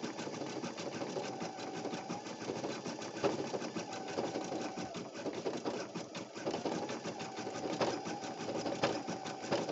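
Baby Lock Flare embroidery machine stitching with a fast, even needle clatter. A thin whine comes and goes for about a second at a time. The owner dislikes this noise and puts it down to the embroidery frame's movement rather than a tangled thread.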